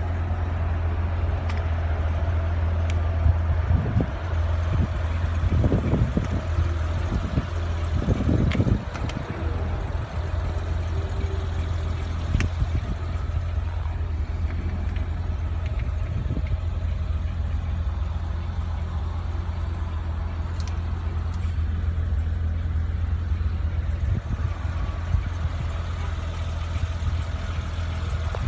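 BMW 325i's 2.5-litre inline-six (M20) idling steadily, a low even hum. A few dull thumps come between about four and nine seconds in.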